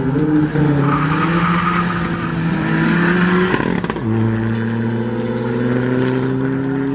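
Tuned Seat Ibiza TDI PD turbodiesel accelerating hard from a drag launch. Its engine note climbs steadily, drops about four seconds in at a gear change, then climbs again.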